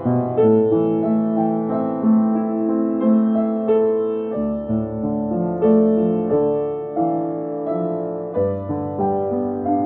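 Solo piano playing a slow, gentle melody over chords and a bass line, the notes left ringing into one another.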